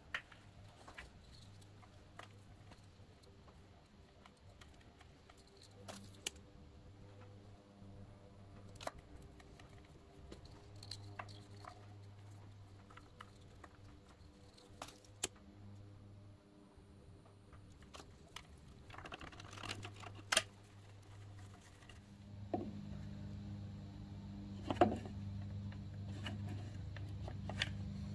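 Wires and plastic wiring-harness connectors handled at the back of a car stereo head unit: scattered small clicks and rustles, a few sharper clicks among them. A faint low hum runs underneath and grows louder in the last few seconds.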